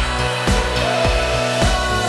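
Upbeat dance music with a heavy kick-drum beat, a little under two beats a second, over a sustained bass line.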